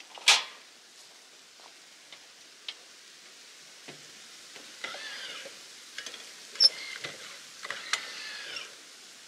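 Scattered clicks, knocks and footfalls as a man steps off a metal stepladder and climbs the folding metal entry steps of a travel trailer, with a few short squeaks. The loudest is a sharp click just after the start, with another sharp knock about two-thirds of the way through.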